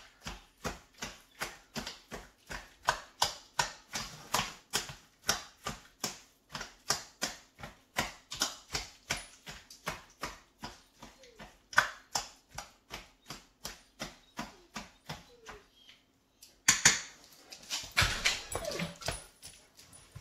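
Kitchen knife chopping food, the blade knocking steadily about three to four times a second. It breaks off briefly near the end, then comes back as louder clattering. Dogs whimper faintly in the background.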